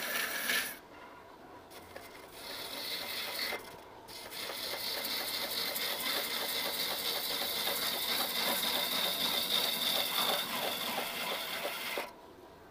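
Turning tool cutting into a spinning wooden vessel blank on a wood lathe: a steady shaving hiss as the tool peels wood. It drops away about a second in, comes back, pauses again briefly near four seconds, and cuts off shortly before the end as the tool is lifted.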